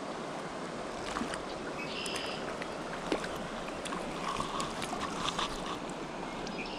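Shallow rocky river water flowing and washing close to the microphone, a steady rush, with scattered small clicks.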